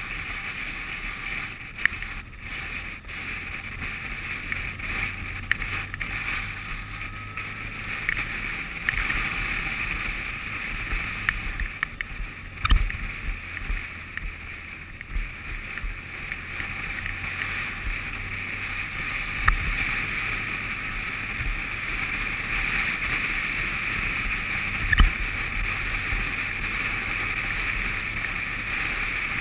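Riding on an adventure motorcycle, heard from its handlebar-mounted camera: a steady rush of wind and road noise over a low engine drone, with a few sharp knocks, about 13, 19 and 25 seconds in, as the bike jolts over the rough dirt road.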